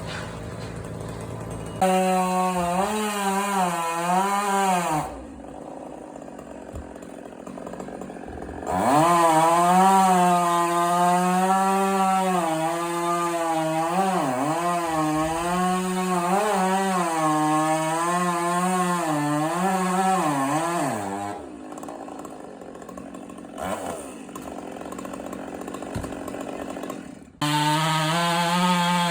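Chainsaw cutting wood, its engine pitch repeatedly dipping and recovering as it labours under load, in three spells with quieter gaps between them.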